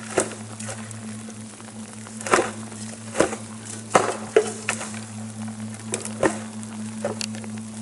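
Background music holding a low, steady drone. Irregular sharp crackles and taps sound over it about a dozen times.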